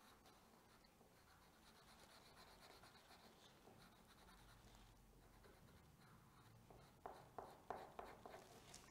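Faint scratching of a felt-tip pen colouring on paper, with a few louder strokes near the end.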